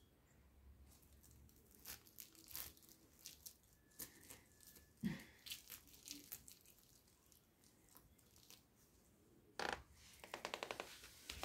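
Small Chihuahua puppies moving about, making faint scattered crinkling and clicking, with a short clatter and a quick run of rapid ticks near the end.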